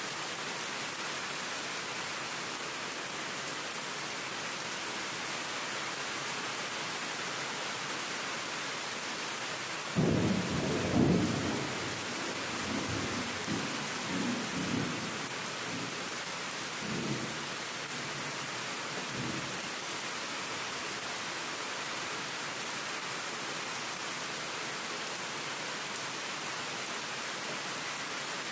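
Steady rain falling on a concrete path and plant pots. About ten seconds in a rumble of thunder breaks in suddenly and rolls on in several swells for about nine seconds before fading back under the rain.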